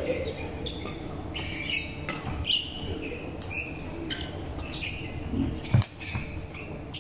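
Court shoes squeaking on a wooden sports-hall floor as badminton players move, many short high squeaks, with a sharp smack about six seconds in.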